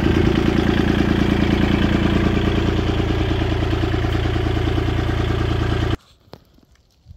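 An engine idling steadily, loud and even, which cuts off abruptly about six seconds in. A few faint clicks and handling sounds follow.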